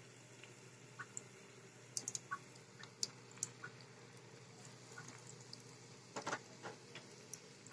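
Battered chicken-and-potato fries frying in hot oil in a pan: a faint sizzle with scattered crackles and pops, and a short cluster of crackles about six seconds in.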